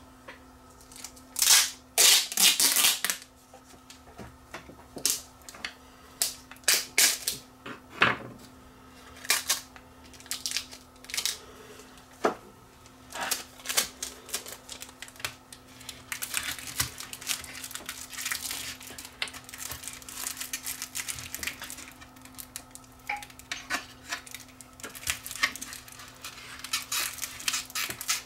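Hands working clear adhesive tape over a foil shield in a plastic case: sharp clicks and knocks, loudest in the first few seconds. Crackling, rustling tape sounds follow in the middle, as the tape is pulled off and pressed down.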